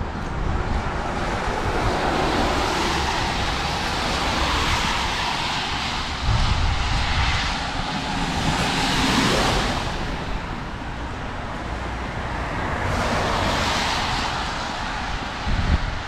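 Traffic passing on a wet road, tyres hissing, swelling as vehicles go by about halfway through and again near the end, with gusts of wind rumbling on the microphone.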